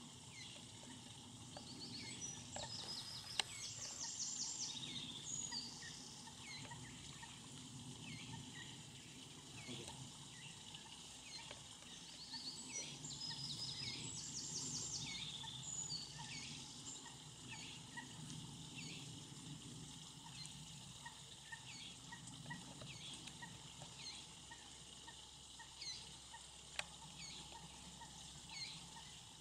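Moorhen chicks peeping, short high calls repeated about once a second. A songbird's song phrase comes in twice, near the start and about halfway through, over the low steady rush of water running over a small weir.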